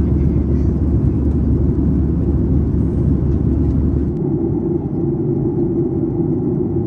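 Steady in-flight cabin noise of a Boeing 737-800: a dense, low rumble of engines and airflow. About four seconds in the deepest part of the rumble drops away and a steadier, higher hum comes forward.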